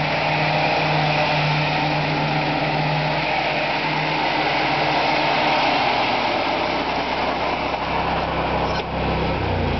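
Kohler gas engine of a Toro Z-Master zero-turn riding mower running steadily. Its pitch drops near the end.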